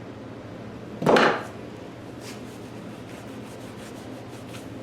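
A single woody knock and scrape about a second in, followed by faint light tapping and rubbing of wood on wood as the pegged breadboard-end joint is handled.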